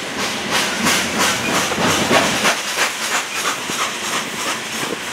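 Loaded coal cars of a freight train rolling past, wheels clacking in a steady rhythm of about three a second over a continuous rushing hiss. The clacks are strongest for the first three seconds and then fade.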